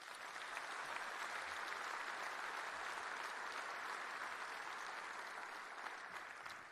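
Audience applauding, building up within the first second, holding steady and tapering off near the end.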